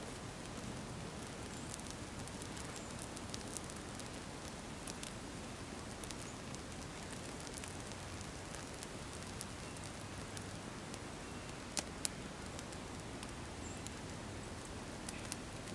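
A sneaker burning in open flames: a steady rush of fire with scattered small crackles, and two louder pops close together about three quarters of the way through.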